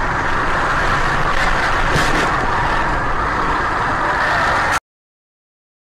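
Steady road and engine noise of a car driving at highway speed, picked up by a dash cam inside the car, with a few faint clicks about two seconds in. It cuts off suddenly near the end, leaving silence.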